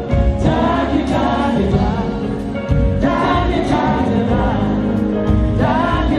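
A small group of singers performing live into microphones over instrumental backing, amplified through the hall's sound system.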